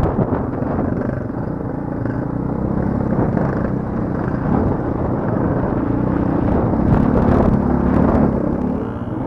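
Off-road motorcycle engine pulling up a loose, rocky track, heard from on the bike, with a few knocks from stones and suspension about seven to eight seconds in. The engine eases off near the end.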